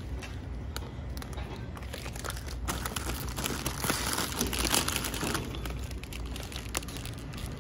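Crinkling of a plastic chip bag being grabbed and handled, a dense crackle that is busiest from about three to five and a half seconds in.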